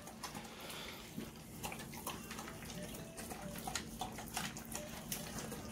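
A Rottweiler–Presa Canario cross dog eating dry kibble from a stainless steel bowl: quick, irregular crunching and clicks of kibble against the metal.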